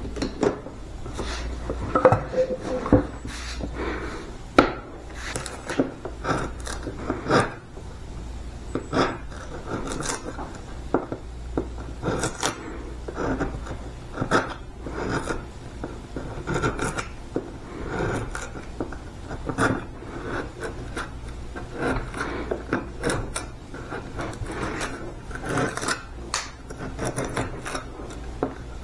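Small chisel scraping and picking bark off the live edge of a walnut slab: irregular short scrapes and knocks, about one or two a second, over a low steady hum.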